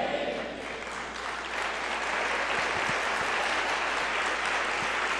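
A congregation applauding. The clapping grows a little about a second and a half in, then holds steady.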